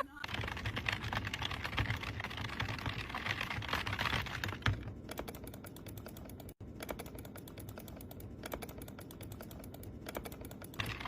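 Rapid, continuous clicking and tapping, louder for the first five seconds and quieter after, with a momentary break about six and a half seconds in.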